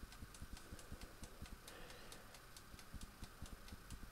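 Faint, rapid, even ticking of the air fryer's clockwork 30-minute timer running down, several ticks a second.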